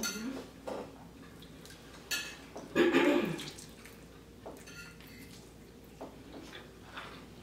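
Eating sounds: wet chewing and cutlery clinking on dishes, with a short voiced sound about three seconds in.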